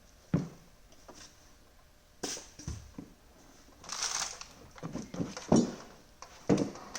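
Irregular metal knocks and clunks of a wrench against a spin-bike pedal and crank while the pedal is being tightened, with a brief scraping rasp about four seconds in.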